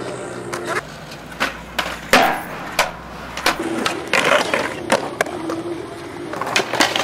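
Skateboard rolling on smooth concrete, with repeated sharp clacks and slaps of the board: tail pops, landings, and the board striking a concrete ledge. The loudest impact comes about two seconds in.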